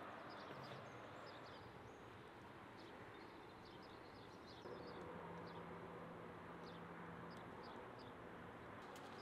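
Quiet outdoor ambience with faint, scattered chirps of small birds over a steady background hiss.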